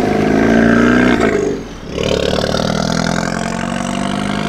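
Volkswagen Scirocco's engine and exhaust accelerating away, the note rising slightly, dipping briefly about a second and a half in, then pulling again.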